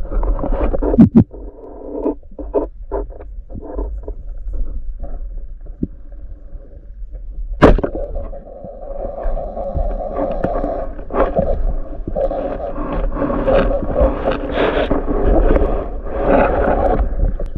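Muffled underwater noise picked up by a camera mounted on a speargun during a dive: water movement with scattered knocks and scrapes of the gear, and one sharp click about eight seconds in.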